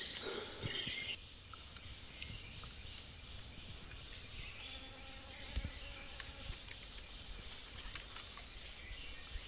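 Quiet forest ambience with faint bird and insect calls. A louder high-pitched call stops about a second in, and faint small clicks are scattered throughout.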